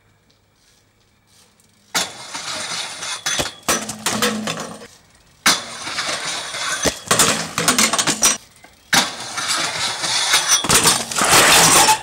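BMX bike on a concrete stair set and metal handrail: rolling, scraping, and sharp knocks and clatters as the bike lands or hits the ground. It comes in three takes of about three seconds each, each starting abruptly.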